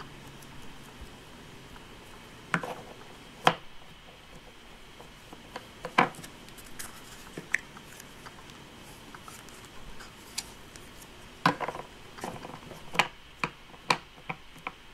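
Sharp plastic clicks and knocks from a Play-Doh ice cream playset as it is loaded and pressed and Play-Doh is squeezed out. They come at irregular intervals, a dozen or so, more of them near the end.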